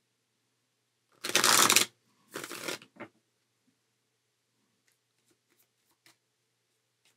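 A deck of cards being riffle-shuffled: one loud riffle about a second in, a second, shorter riffle, then a quick tap. A few faint taps follow as the deck is squared.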